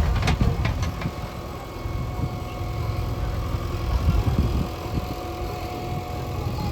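Diesel engine of heavy earthmoving machinery running steadily, with a few sharp knocks in the first second.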